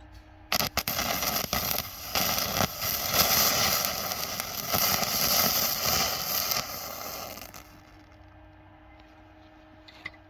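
Stick (arc) welding with a basic electrode on galvanized steel tube. The arc strikes with a few sharp cracks about half a second in, then crackles steadily for about seven seconds and stops.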